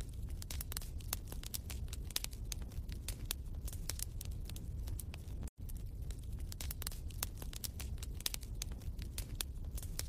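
Wood fire crackling: irregular sharp pops and snaps over a low steady rumble, with a brief dropout to silence about five and a half seconds in.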